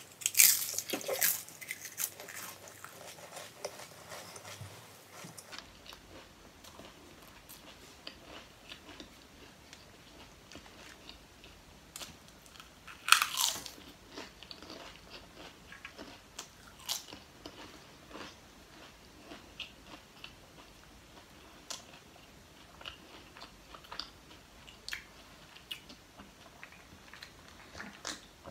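Lay's potato chips being bitten and chewed close to the microphone, with crisp crunching. There are loud bites at the start and about halfway through, each followed by sparser, quieter chewing crunches.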